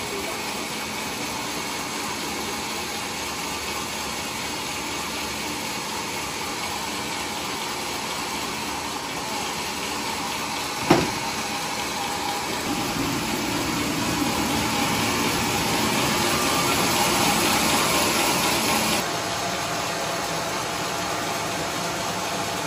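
Sawmill machinery running steadily, with one sharp knock about halfway through. The noise grows louder for a few seconds in the second half, then drops suddenly.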